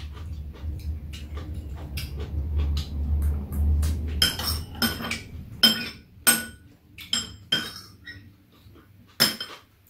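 Metal spoons and chopsticks clinking against porcelain bowls and a metal tray during a meal: scattered sharp, ringing clinks, with the loudest ones in the second half. A low hum lies under the first few seconds and then stops.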